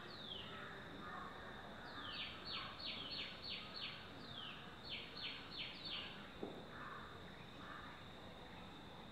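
A small songbird singing quick runs of high, down-slurred notes, about four a second, in two main bursts, over faint outdoor background. A single soft knock comes about two thirds of the way in.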